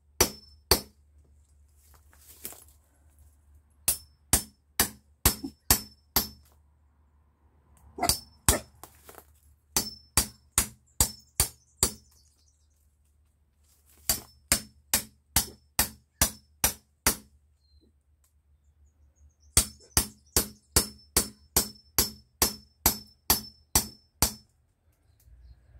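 Hammer striking the back of a steel blade, driving it into a cherry plum branch: sharp metallic knocks with a ringing edge, about three a second, in short runs broken by pauses. The longest run comes near the end.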